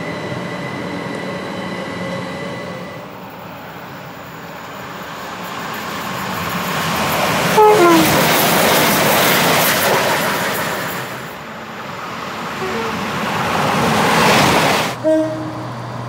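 A GWR Class 800 Intercity Express Train approaches and passes at speed, building to a loud rush of wheel and air noise, with a short horn blast about eight seconds in. Near the end a second train, a Chiltern Railways Class 168 diesel unit, gives a brief two-note horn toot over its engine hum.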